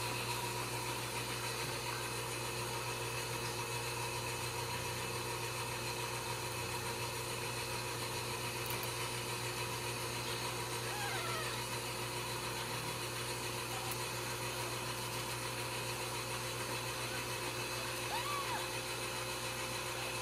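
Steady mechanical hum at an even level throughout, with a few faint, high mews from newborn Ragdoll kittens about halfway through and again near the end.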